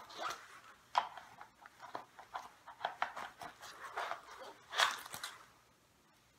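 Nylon jacket rustling as it is swept back, with clicks and scrapes of a Glock 17 pistol going into and out of a Kydex outside-the-waistband holster. A sharp click comes about a second in, and the loudest burst of scraping comes near the end as the pistol is drawn.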